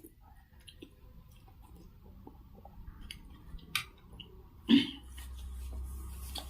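Close-miked chewing and eating of pork noodle soup, with small wet mouth clicks and a louder knock a little under five seconds in.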